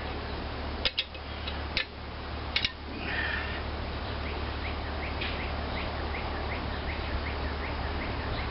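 Metal parts clinking sharply three times as engine pieces and hand tools are handled, then a steady hiss with a run of short rising chirps, about three a second.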